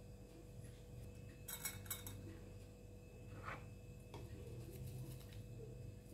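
Faint clinks and taps of utensils against dishes: a quick cluster about a second and a half in, then a couple of single taps, over a low steady hum.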